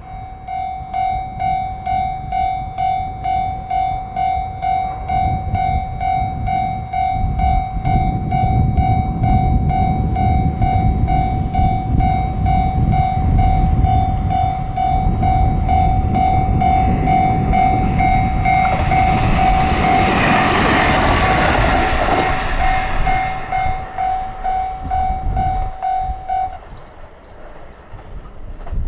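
Japanese level-crossing warning bell ringing in a rapid, even repeat while a train rumbles up to and through the crossing, the passing loudest about two-thirds of the way in. The bell stops a couple of seconds before the end, as the crossing clears behind the train.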